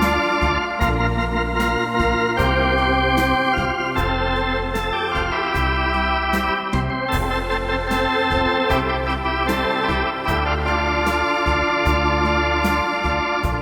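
Electronic organ playing a slow ballad: a held melody over sustained chords and a moving bass line, with the instrument's built-in drum rhythm ticking along steadily.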